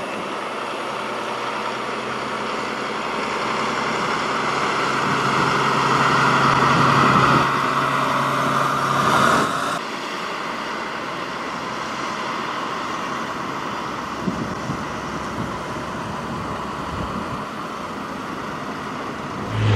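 Diesel engine of a heavy-haulage tractor unit pulling a loaded low-loader trailer, growing louder as it comes up and passes close by. About ten seconds in the sound cuts abruptly to a steadier, quieter engine and road noise as the following transporter approaches.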